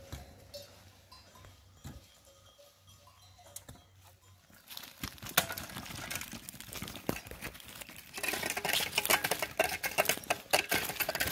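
A flock of goats and sheep moving about: a dense clatter and rustle that starts about halfway through and grows louder near the end.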